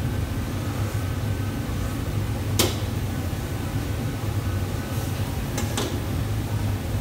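Steady low roar of a commercial kitchen's running stoves, with sharp metal clinks of a ladle against a pot: the loudest about two and a half seconds in, and two more close together near the end.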